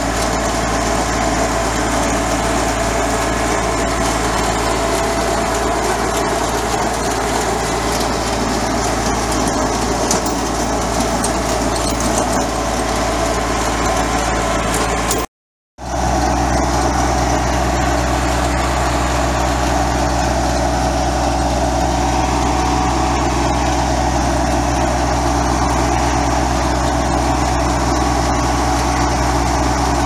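Compact tractor engine running steadily under load while driving a PTO-driven 3-point mini round baler that is picking up and baling hay. The sound drops out completely for about half a second near the middle.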